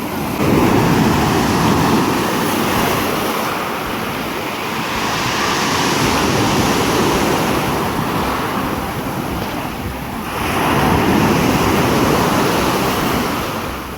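Sea waves washing onto the shore, swelling and falling back about every five seconds, with wind buffeting the microphone.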